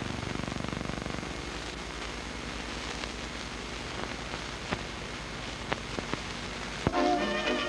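Steady hiss with scattered crackles and clicks from an old optical film soundtrack, with a low hum that drops away about a second in. Music starts near the end.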